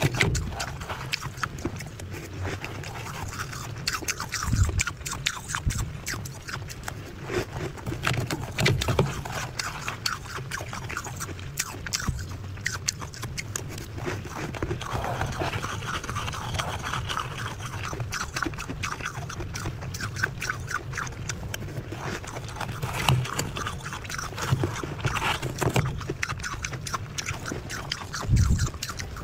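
Close-up chewing of soft, powdery ice: a continuous fine crunching and crackling, mixed with spoon scrapes against the ice, and a few louder low thuds of heavier bites.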